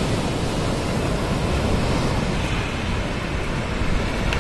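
Sea surf breaking and washing up the beach, mixed with wind buffeting the microphone: a steady rushing noise with a heavy low rumble.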